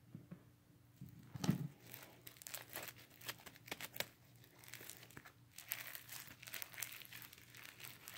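Slime being stretched and pulled apart by hand, with irregular crackling and tearing sounds starting about a second in.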